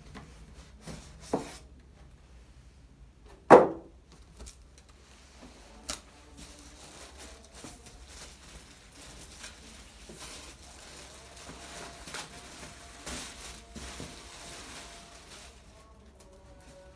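Hands working inside a cardboard box to get a packed speaker out: a few knocks against the box, the loudest a single thud about three and a half seconds in, then a long stretch of rustling packing material.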